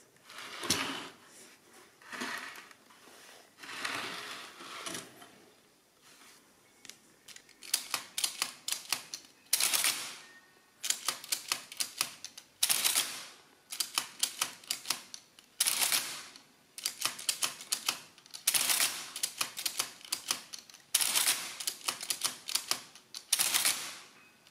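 Olympia AE-8 electric adding machine with its case off, keys pressed while the mechanism runs through its cycles. Three single cycles come first, then groups of fast clicks, each ending in a longer burst, repeat about every three seconds.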